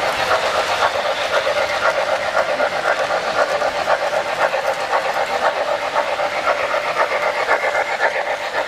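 O-scale three-rail model steam locomotive's onboard sound system chuffing rapidly and steadily, with the running noise of the passing model train on the track.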